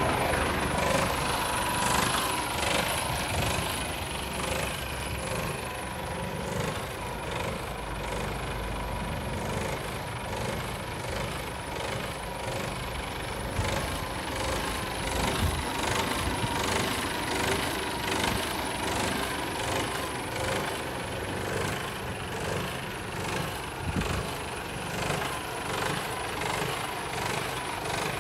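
Mercedes Actros 1840's 400 bhp Euro 6 diesel engine idling steadily, a constant low diesel clatter.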